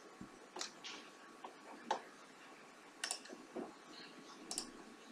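Faint, scattered clicks of a computer mouse and keyboard, about six of them at uneven intervals.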